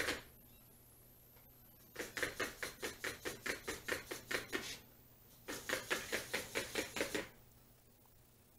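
Small quadruped robot dog (XGO-Lite) walking in place on a hardwood floor: rapid light taps of its feet and legs at about five a second. The taps come in two runs, the first starting about two seconds in and the second after a short break near the middle.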